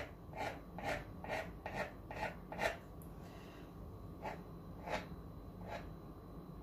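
Knife tip pressed again and again along the edge of a dough turnover to crimp it, each press a short scrape against the dough and the floured counter: about seven strokes at two a second, then three more spaced out.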